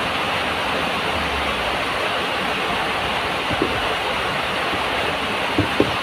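Heavy rain pouring down as a steady, dense hiss, with a few short soft knocks in the second half.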